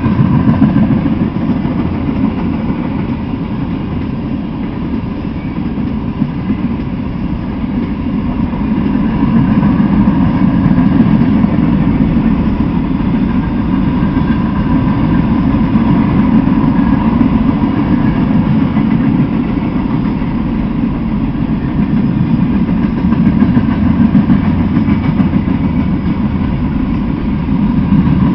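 Freight train making a steady low rumble, growing somewhat louder about eight seconds in and then holding steady.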